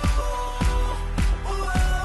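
Background pop-style music with a steady beat of about two strikes a second under a held melody.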